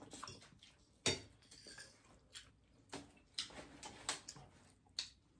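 Eating at a table: a scattered series of sharp clicks and taps of a metal fork on a plate, with faint chewing between them.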